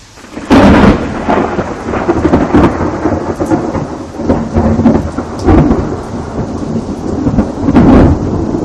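Loud thunderclap that breaks suddenly about half a second in, then rolls on as a crackling rumble with several swells, rising again to a second loud peak near the end.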